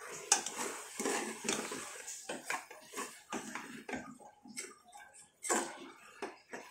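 Steel ladle stirring and scraping minced mutton keema around an aluminium pressure cooker, with irregular clinks and scrapes of metal on metal over the sizzle of the frying meat.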